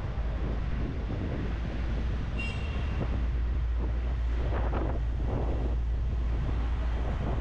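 Wind rumbling on the microphone over city street traffic, with a brief high-pitched squeal about two and a half seconds in.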